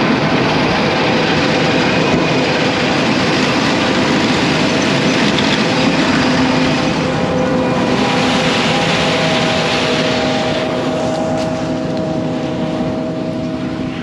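John Deere combine running under load while harvesting soybeans: a steady, loud machine noise of engine and threshing and header drives, with a constant whine. The sound shifts in character about halfway through.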